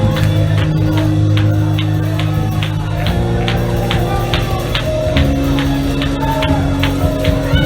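Gospel praise music: held keyboard chords that change twice, over a quick steady drum beat, with congregation voices shouting over it.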